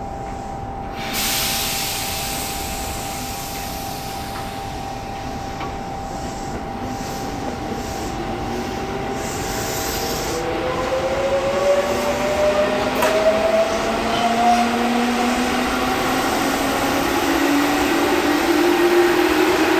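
Tobu 8000-series electric train pulling away from a station stop. About a second in there is a burst of air hiss. Then its traction motors and gears whine, in several tones that rise steadily in pitch and grow louder as it gathers speed.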